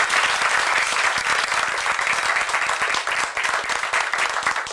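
Audience applauding: dense, steady hand clapping from a roomful of people.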